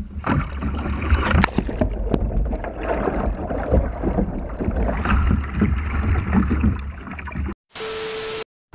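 Water splashing and churning around a capsizing kayak, heard partly from underwater, with many sharp splashes over a low rumble. Near the end a short burst of TV static with a steady beep.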